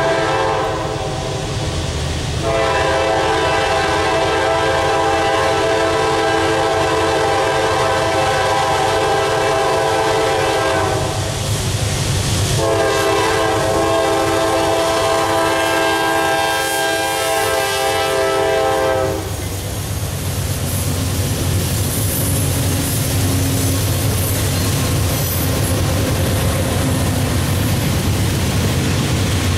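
Horn of a Norfolk Southern GE Dash 9-40CW locomotive leading the cement train: a multi-chime air horn giving two long blasts, the first about nine seconds and the second about six. After that comes the rumble of the passing locomotives and the rolling clickety-clack of loaded covered hopper cars on the rails.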